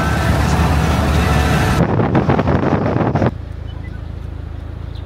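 Car engine and road noise while driving, loud and steady with a low engine hum. A little over three seconds in it cuts abruptly to a much quieter low rumble.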